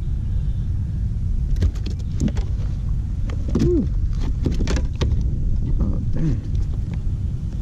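Wind buffeting the microphone as a steady low rumble, with a run of sharp clicks and knocks from the hands working a fish, a lure's hooks and a landing net in a kayak, and a few short squeaky glides mixed in.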